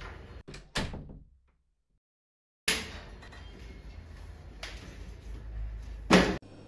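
A door shutting with a sharp knock about a second in, then a couple of seconds of dead silence. Room noise returns abruptly, with a softer knock and then a louder thud near the end.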